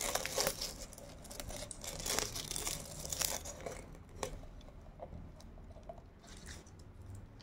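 Dried ginkgo leaves crackling and crunching as they are crushed by hand and fed into a bottle. The crunch is the sign of fresh leaf. The crackling is dense for the first three or four seconds, then thins to scattered clicks.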